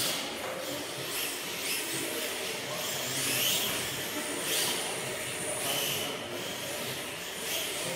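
Several electric 1/10-scale RC drift cars running laps, their motors giving high-pitched whines that rise and fall as they speed up and slide through the corners.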